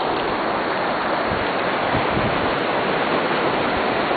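Steady wash of surf and water on the beach, an even hiss with no break, with a few brief low thumps about a third of the way in.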